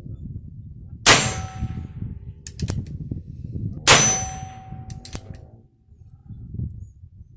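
Two shots from a Heritage Rough Rider .22 LR revolver with a 16-inch barrel, about three seconds apart, each followed by a metallic ring that lasts over a second; a third shot comes right at the end.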